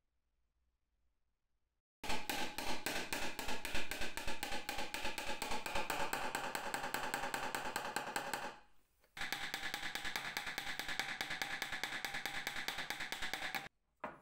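Mandolin played with rapid tremolo picking, many quick even pick strokes on sustained notes. It comes in two passages with a short break between them, and each stops abruptly.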